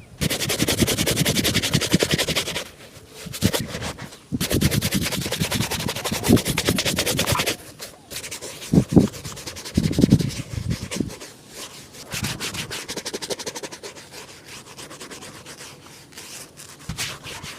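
A shoe being polished by hand, rubbed briskly in fast back-and-forth strokes. It comes in two long loud stretches, then goes on more quietly with a few low thumps about halfway through.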